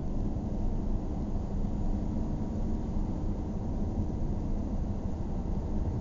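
Steady road and engine noise of a car driving, heavy in the low end with a faint even hum.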